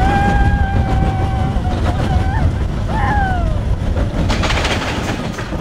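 Roller coaster ride: a heavy rumble with wind on the microphone, over which a rider holds one long whoop about two seconds long, followed by shorter falling whoops.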